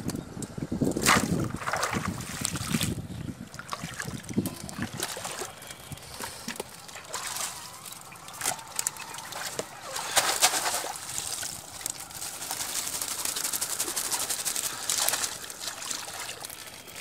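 Live eels and small fish slapping and wriggling in a wet plastic crate, with splashes and trickling water. The sound is irregular, loudest in the first few seconds and again about ten seconds in.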